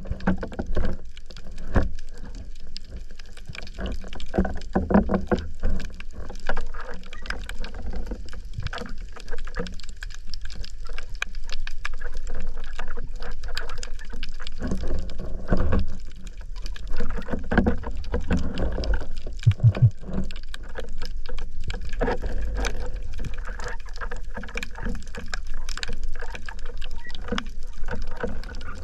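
Underwater ambience on a shallow rocky reef, heard through a camera housing: a muffled rumble of water surge with continual crackling clicks and scattered knocks, a short run of low thumps about two-thirds of the way through.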